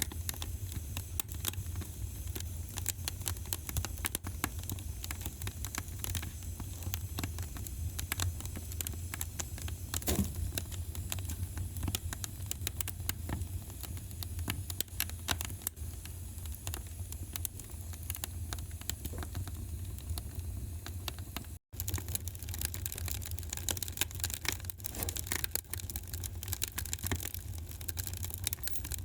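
Wood fire crackling in a fireplace: a dense run of small pops and snaps over a steady low rumble, with a momentary dropout about two-thirds of the way through.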